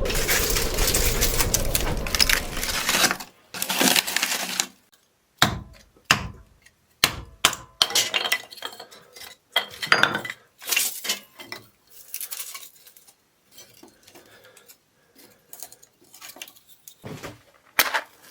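Clinks and knocks of dishes and cutlery being handled: a scattered run of short strikes, some ringing like glass or ceramic, after about three seconds of a steady rushing noise.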